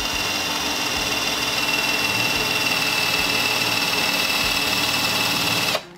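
Narion Home cordless drill-driver at top speed driving a self-drilling screw into steel plate: a steady motor whine that sags a little in pitch as the screw tip bites. The screw is slow to go in. The motor stops briefly near the end, then starts again.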